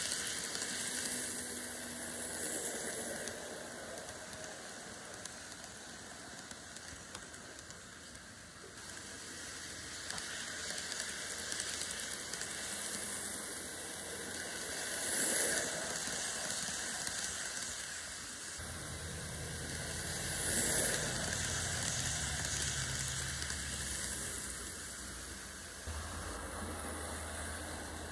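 Model trains running on track: a steady hiss of wheels rolling on the rails and small motors whirring. It swells twice as trains pass close by, and a low motor hum comes in about two-thirds of the way through.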